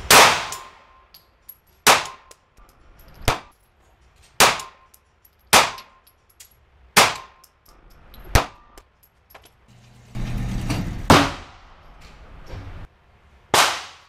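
Smith & Wesson M&P Shield 9mm pistol fired one-handed: nine sharp shots about one to one and a half seconds apart, with longer pauses before the last two, each ringing off the walls of an indoor range.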